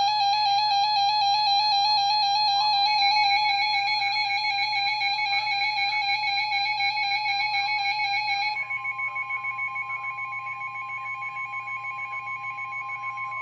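Emergency Alert System attention signal: a loud, steady electronic alert tone with several pitches sounding together. About eight and a half seconds in, its upper tones drop away and a higher single tone joins it, held until the warning message begins.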